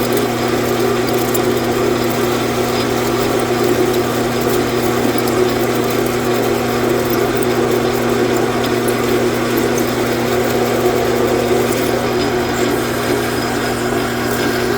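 Metal lathe running steadily under a cut, a constant motor hum with a few held tones beneath the noise of the tool cutting metal.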